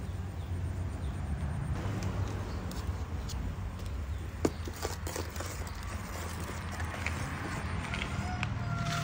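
Ladle stirring thick curry in an aluminium pot, scraping and knocking against the metal, with one sharp knock about halfway through. A steady low rumble runs underneath.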